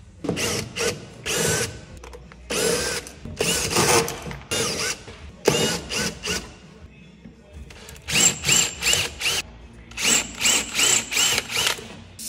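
Cordless drill-driver run in many short trigger bursts, each a brief whine that rises and falls in pitch, with two quick runs of four or five pulses in the second half.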